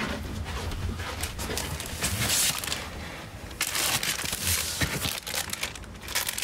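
Clear plastic bags of clothing crinkling and rustling in irregular bursts as they are handled and pulled out of cardboard storage boxes.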